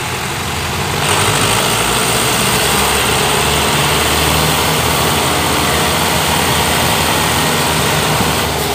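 Diesel farm tractor engines running hard under heavy load, a steady loud engine drone that grows louder about a second in.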